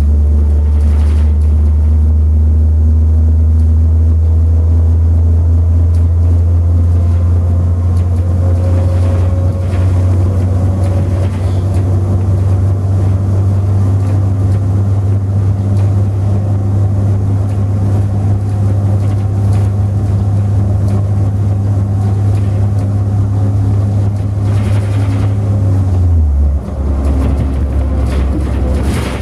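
Inside a moving bus: engine and road noise from steady driving, a loud low drone that drops in pitch about 26 seconds in.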